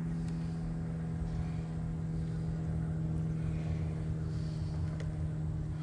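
A steady motor hum holding one unchanging pitch throughout, with a few faint clicks from wooden hive frames being handled.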